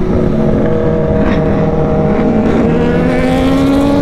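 Kawasaki sport-bike engines running at highway speed over a rush of wind, heard from the rider's seat. The engine notes climb slowly over the last second or two as the bikes pick up speed.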